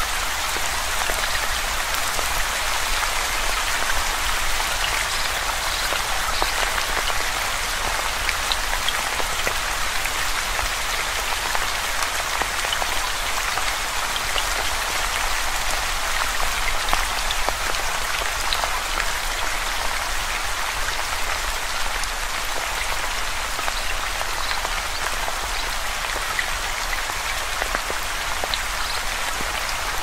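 Steady rain falling: a dense, even hiss with scattered small drop ticks through it.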